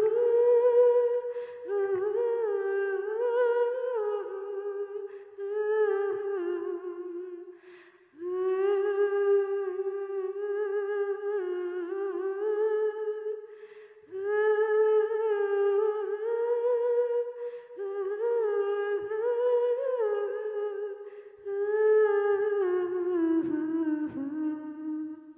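A woman's voice humming a slow, wordless melody in phrases of a few seconds each, with short breaths between them. The last phrase slides down in pitch and fades out.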